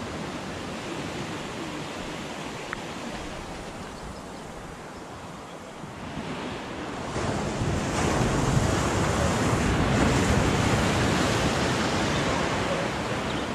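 Sea waves breaking and washing against a rock jetty, swelling louder about halfway through and easing off toward the end.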